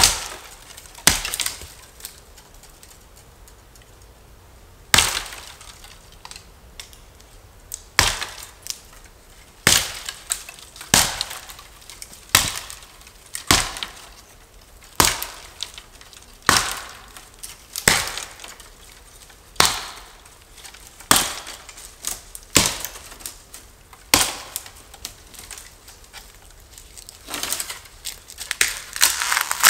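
Hatchet (Fiskars Norden N10) chopping into the trunk of a thin standing dead tree: sharp wooden strikes, two at first, then after a short pause a steady stroke about every second and a half. Near the end the strikes give way to a quick run of splintering cracks as the trunk gives way.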